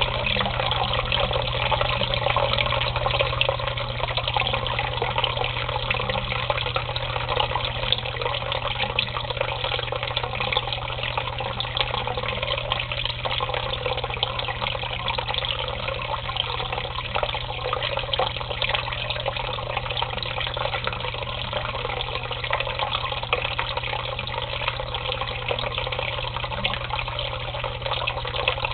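Water running and splashing steadily into shallow water, with a steady low hum underneath.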